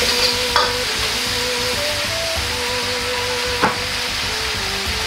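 Pork and cabbage sizzling as they stir-fry in a wok, with a metal ladle scraping through the food and knocking sharply against the wok twice.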